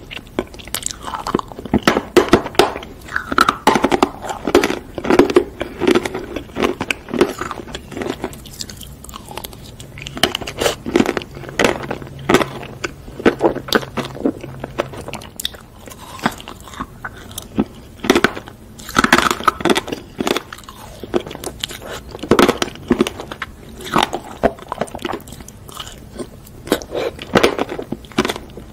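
Close-miked eating of sprinkle-topped ice cream bars: crunchy bites and steady chewing, with many small crackles from the coating and sprinkles.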